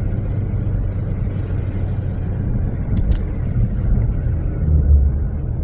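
Steady low rumble of a car's engine and tyres on the road, heard from inside the moving car, with a brief click about three seconds in.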